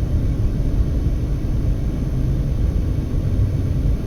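Steady low rumble of a car driving along the road, heard from inside the cabin: engine, tyre and wind noise.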